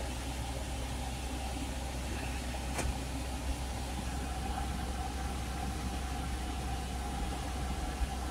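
Steady low rumble of a vehicle's engine and tyres, heard from inside the cabin while driving. One faint click comes about three seconds in.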